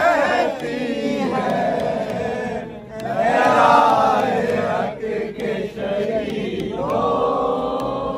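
A group of men's voices chanting together in unison, rising and falling with short breaks, then holding one long note near the end.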